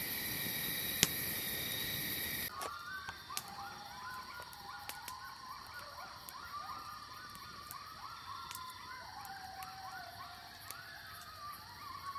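A steady insect chorus, then from about two and a half seconds in a pack of coyotes yipping and howling in many short overlapping rising and falling calls. A campfire crackles now and then throughout.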